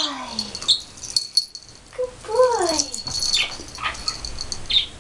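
Yorkshire Terrier puppy giving two short, whiny yelps during rough play: one falling in pitch right at the start, another rising and falling about two and a half seconds in. Light rattling clicks come in between.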